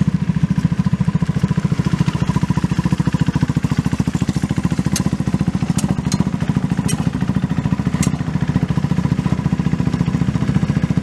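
Formula Student race car's engine running at steady low revs, an even fast pulsing with no revving, with a few light clicks in the middle.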